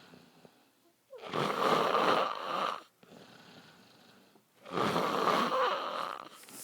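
A sleeping man snoring loudly: two long snores, each lasting nearly two seconds, the first about a second in and the second about three and a half seconds later, with quiet pauses between them.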